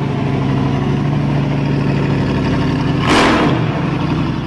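An engine idling steadily just after starting, with a brief rev about three seconds in.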